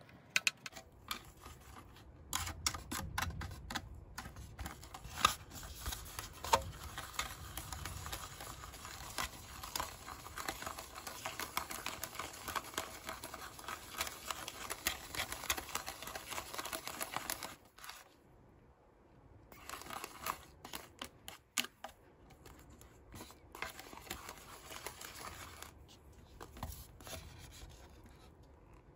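Small plastic spoon stirring and whipping a DIY candy mix in a plastic tray: rapid scraping and clicking of plastic on plastic as the mix turns into a thick foam, with a short pause a little past halfway and slower strokes after it.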